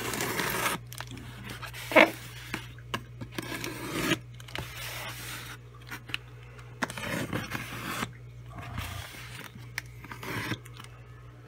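A cardboard shipping box being worked open through heavy packing tape: irregular scraping, rubbing and tearing, with a sharp loud crack about two seconds in.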